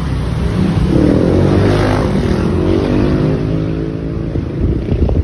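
Motorcycle engine running under way, its note climbing about a second in and then easing down slowly.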